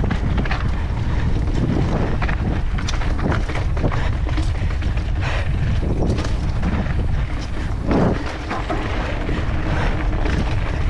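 Mountain bike riding down a rocky trail: heavy wind on the microphone, with frequent knocks and rattles as the tyres and bike go over rocks.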